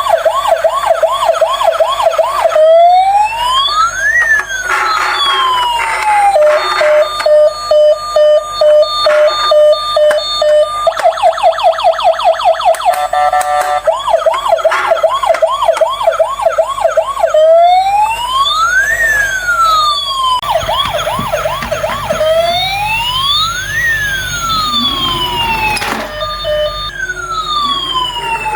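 Electronic ambulance siren sounds that cycle through patterns: a fast yelp of about four whoops a second, slow wails that rise and fall, and quick steady beeping, with two sirens overlapping at times.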